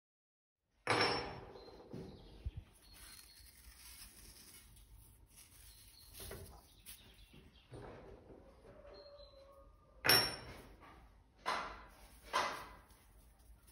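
Dried herbs (rosemary, then thyme) rubbed between fingers and sprinkled onto a raw pork rack in a stainless steel roasting pan: dry crackly rustling in short bursts, the loudest about a second in and three more near the end.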